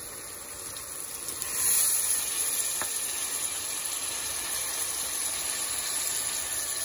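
Water poured from a measuring jug into a pot of hot frying masala, the pot hissing and sizzling. The sizzle swells about a second and a half in, then holds steady.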